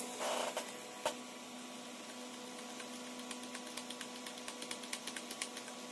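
A computer keyboard key, the Delete key, tapped repeatedly during the PC's boot to enter the BIOS setup: faint, short clicks about three to four a second, thickest in the second half. A steady hum from the running PC underlies them, with a brief rustle near the start and one sharper click about a second in.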